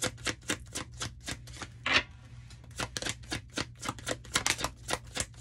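A deck of tarot cards being shuffled by hand: a run of quick, sharp card slaps, about five a second, with a short lull a little past the middle.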